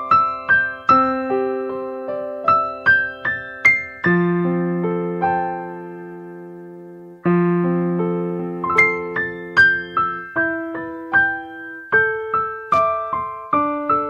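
Background music: a slow piano melody over chords. About four seconds in, one chord is left ringing and fades for about three seconds before the melody picks up again.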